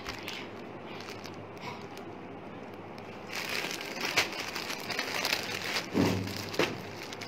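Clear plastic garment packaging crinkling and crackling as a packed shirt is lifted, turned over and laid back down, starting about three seconds in, with a soft thud near the end.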